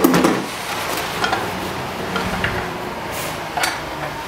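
Metal parts clacking and clinking as the recoil starter housing is worked off a snowmobile's two-stroke triple engine: a loud clack right at the start, then a few scattered light ticks.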